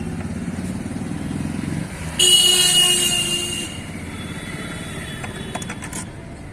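Street traffic: an engine running steadily, then a vehicle horn blares once for about a second and a half, the loudest sound here. A few faint clicks follow near the end.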